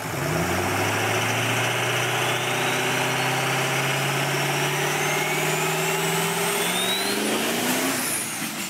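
Engine sound effect accelerating: a steady run-up whose pitch climbs slowly over several seconds and rises faster near the end, with a thin high whistle rising above it, then fading.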